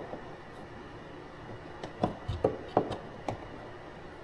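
Light clicks and knocks of hand work with small tools and hardware: about five short taps in quick succession starting about two seconds in, after a quiet stretch.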